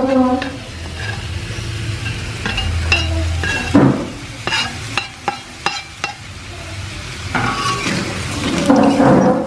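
A metal spatula stirring and scraping through crab, tomato and scallion frying in an aluminium wok, with sizzling and sharp clinks of metal on the pan, thickest from about four to six seconds in.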